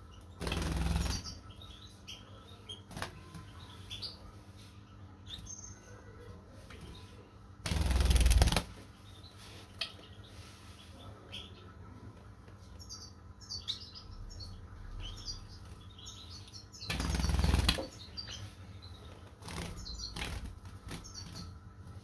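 A young lovebird flapping its wings in three bursts of about a second each: near the start, about eight seconds in and about seventeen seconds in. Its flight feathers are removed, so it flutters on the floor rather than flying. Faint short chirps come in between.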